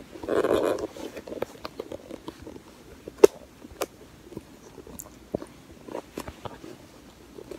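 Handling noise of a hand-held phone: a short rustle at the start, then scattered light clicks and knocks, the sharpest about three seconds in.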